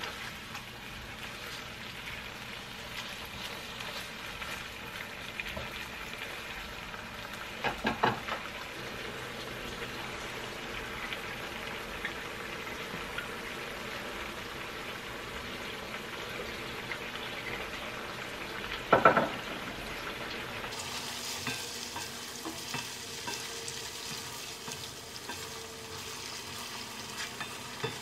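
Chicken pieces simmering and sizzling steadily in tomato sauce in a wok while a plastic slotted spatula stirs them. A quick run of knocks comes about eight seconds in, and one louder clatter near the middle.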